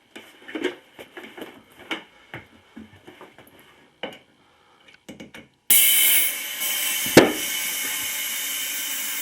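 Scattered clicks and knocks of the garden tractor tire and tools being handled. About halfway, a loud hiss of compressed air starts suddenly as the tire is inflated with the valve core out. A sharp pop a second and a half later is the bead snapping onto the rim, and the hiss then runs on steadily.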